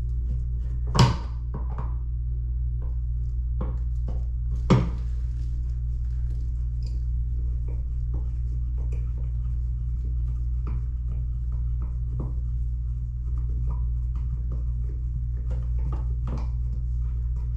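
Light clicks and taps of small hardware being handled, with two sharper knocks about one second and just under five seconds in, over a steady low hum.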